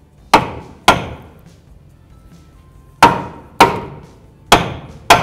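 Rubber mallet striking a new front lower control arm to tap its front bushing into the subframe: six sharp knocks in three pairs, each ringing briefly.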